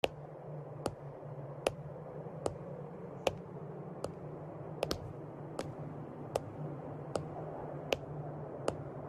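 Slow, evenly paced sandalled footsteps, one sharp step a little under every second, over a steady low hum.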